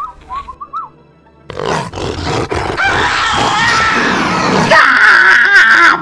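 A few short high gliding notes, then from about a second and a half in a loud, long, raspy roaring yell from a cartoon character's voice that wavers in pitch and grows more strained near the end.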